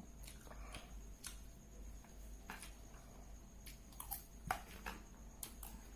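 Faint, scattered clicks and taps over a low steady hum, with the loudest click about four and a half seconds in.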